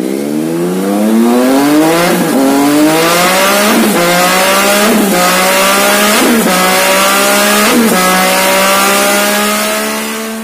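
Yamaha MT-09 (FZ-09) three-cylinder engine under full throttle on a dyno, breathing through a titanium MVR aftermarket exhaust. Its note climbs steadily and drops back five times as it shifts up through the gears, then fades near the end as the throttle closes.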